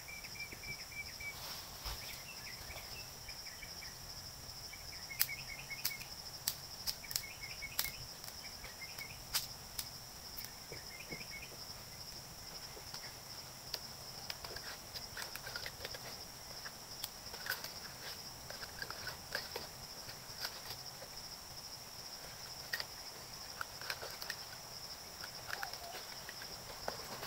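Faint outdoor ambience: a steady high insect drone, with short chirping calls repeated in roughly the first ten seconds and scattered light clicks and snaps throughout.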